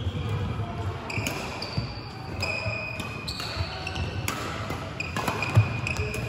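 Court shoes squeaking in short chirps on an indoor badminton court floor, with footfalls and a few sharp racket hits on a shuttlecock, the loudest about a second before the end.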